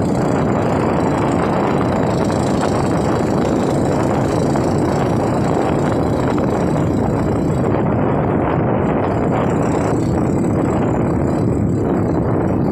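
Habal-habal motorcycle running steadily while being ridden, engine and road noise heard from on board.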